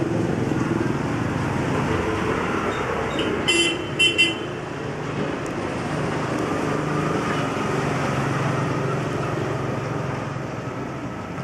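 Steady road traffic noise, with a vehicle horn tooting twice in quick succession about three and a half seconds in.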